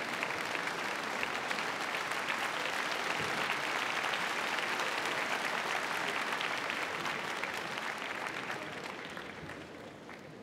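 Crowd of spectators applauding steadily, the clapping thinning out and fading over the last couple of seconds.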